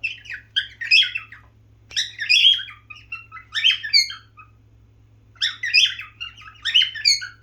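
Male cockatiel singing just after mating: short warbled phrases of chirps and whistles, in four bursts with brief pauses between them.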